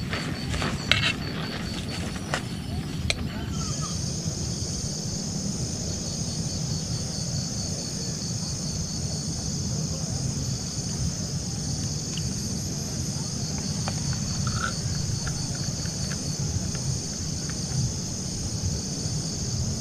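Steady high-pitched insect chorus that starts a few seconds in, over a continuous low rumble of wind on the microphone. A few light clicks come in the first seconds, before the insects.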